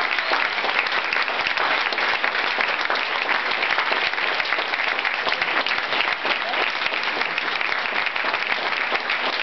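Audience applauding, many hands clapping in a steady, dense stream.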